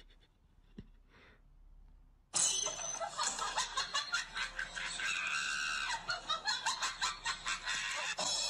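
Loud shrieking laughter that breaks in suddenly about two seconds in and goes on in quick pulses, about four a second.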